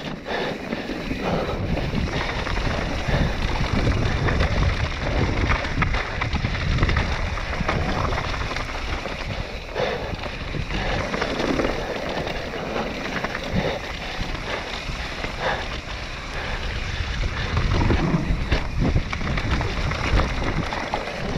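Mountain bike descending a dry, dusty dirt trail at speed: wind buffeting the helmet or handlebar camera's microphone, tyres running over loose dirt and stones, and the bike clattering with irregular knocks over the bumps.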